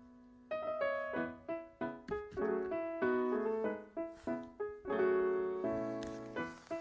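Background piano music: a light melody of plucked-sounding notes resuming after a note dies away about half a second in.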